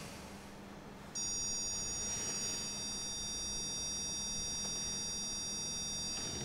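Zircon electronic stud finder giving a steady high-pitched beep that switches on suddenly about a second in and holds for about five seconds as it is slid over the wall, its signal that it is over a solid fixing behind the lining.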